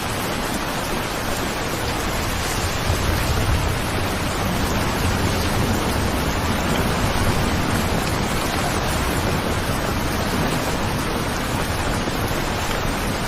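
Steady heavy rain, a dense even hiss, with a low rumble swelling up underneath for a few seconds midway.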